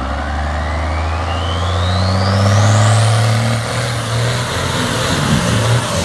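Cummins 6BT turbodiesel in a pickup working hard under full load up a steep dirt hill, with a steady deep engine note. A thin whistle rises in pitch over the first three seconds as the turbo spools, and the note breaks up near the end.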